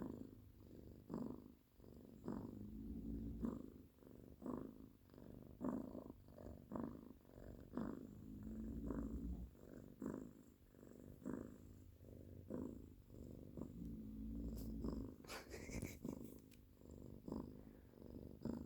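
Sleeping pets snoring, a hairless cat and a Yorkshire terrier: a low, rhythmic rasping that pulses two to three times a second, with a few longer rumbling stretches. A brief rustle comes about three seconds before the end.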